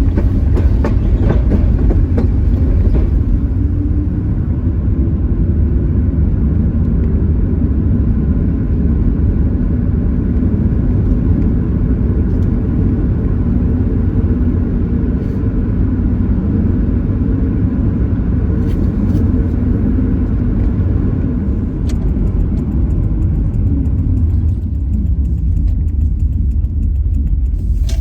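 Car on the move: a steady low rumble of engine and tyres on the road.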